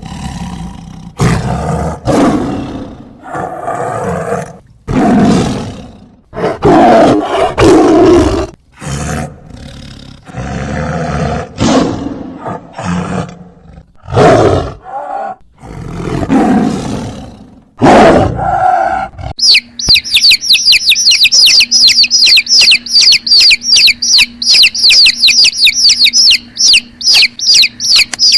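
A tiger roaring and growling in a series of loud, irregular calls. About two-thirds of the way through it gives way to a fast run of high, bird-like chirps, several a second.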